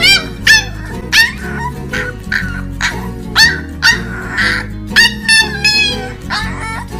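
A puppy yapping over and over in short, high-pitched yips, about one to two a second.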